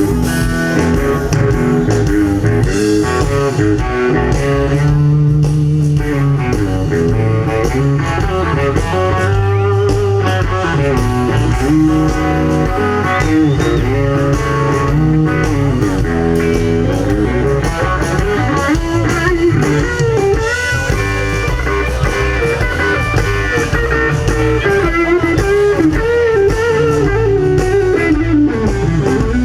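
Live blues band playing an instrumental break: an electric guitar lead with bending notes over bass guitar.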